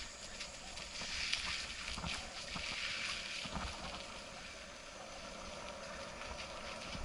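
Bicycle tyres rolling over a dirt trail strewn with dry leaves: a steady hiss with a few knocks as the bike jolts over bumps, easing off about halfway through.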